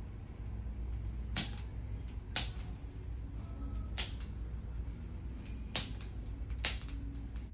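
Handheld chiropractic adjusting instrument (an activator) firing: five sharp clicks at uneven intervals of one to two seconds, with a few fainter clicks between them, over a low steady hum. Each click is one low-force adjustment thrust delivered through the tool's small tip, in place of a manual joint 'crack'.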